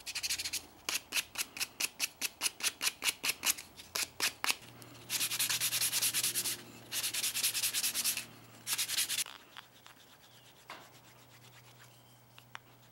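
Sandpaper rubbing back and forth along a poplar wood dowel handle: quick, even strokes at about five a second, then three longer sanding passes, before it fades to faint scattered ticks near the end.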